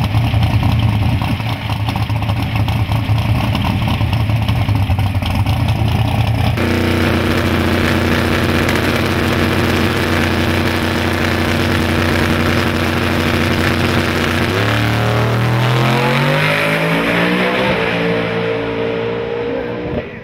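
Twin-turbo 548 cubic-inch big-block Chevy V8 of a drag-racing Chevrolet Malibu, loud and holding a steady pitch, with an abrupt change about six seconds in. About fifteen seconds in it launches and accelerates hard down the drag strip, its pitch climbing steadily.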